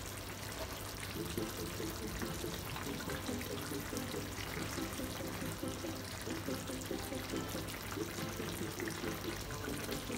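Sauce simmering in a frying pan and being ladled back over the steaks, with liquid pouring and dribbling from the ladle. Quiet background music with repeated low notes comes in about a second in.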